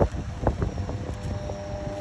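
Low wind rumble on the microphone over a steady mechanical hum, with a sharp knock at the start and another about half a second in.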